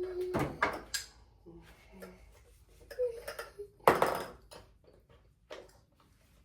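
Several sharp knocks and clatters of hard household objects such as dishes or utensils, loudest about four seconds in. A held tone stops just after the start.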